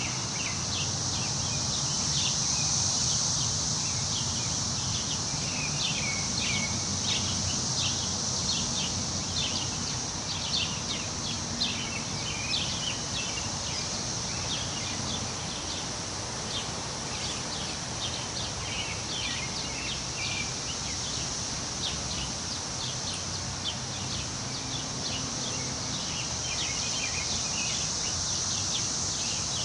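Woodland ambience: many short bird chirps throughout, over a steady high-pitched insect drone and a low, steady rush of wind in the trees.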